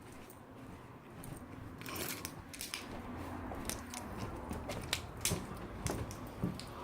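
A run of irregular sharp clicks and light knocks over a rustling handling noise, starting about two seconds in and growing a little louder toward the end.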